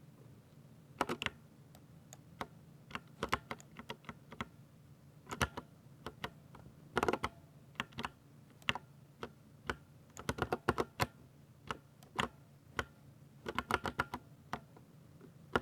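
Typing on a 60% mechanical keyboard: irregular clacking keystrokes, some single and some in quick flurries, with short pauses between.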